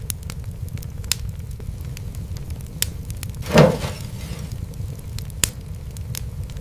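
Fireplace fire crackling: scattered sharp pops over a steady low rumble, with one louder, longer pop about halfway through.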